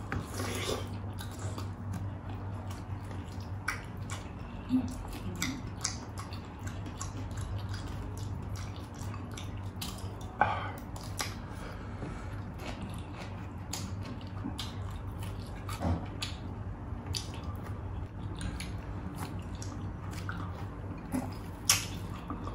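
Close-miked mukbang eating sounds: two people chewing rice, adobo, fried chicken and pineapple eaten by hand, with wet lip smacks and many small clicks, a few of them louder. A low steady hum sits underneath.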